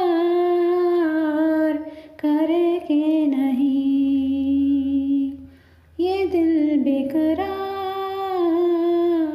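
A woman singing a slow Hindi film song without accompaniment, in long drawn-out notes, with a short break about two seconds in and a fade to a pause near six seconds.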